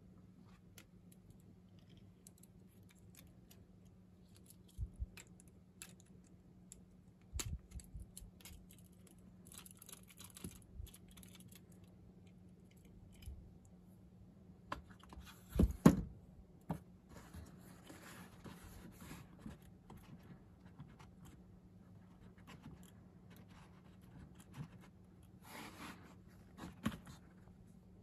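Small plastic parts being handled: scattered clicks, scrapes and light knocks as a 3D-printed holder and a small flashlight are fitted onto the temple of a pair of glasses. The loudest is a cluster of knocks a little past halfway, over a faint steady low hum.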